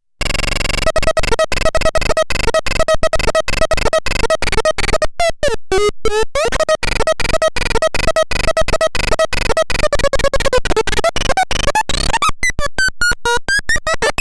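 Electronic synthesizer playing harsh, chopped tones that pulse several times a second, with sweeping pitch glides around the middle and again near the end.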